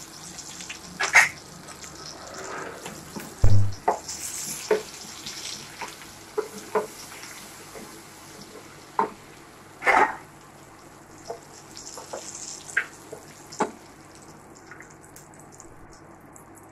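Fennel and cumin seeds sizzling and spluttering in hot oil and butter in a steel pan, the tempering stage before the aromatics go in, with a spatula knocking against the pan now and then. A heavy thump comes about three and a half seconds in, and the hiss thins out near the end.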